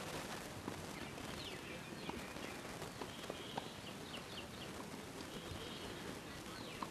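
A few scattered faint pocks of tennis balls struck by racquets. Between them, a run of short, high, falling bird chirps for the first few seconds, over a steady outdoor hiss.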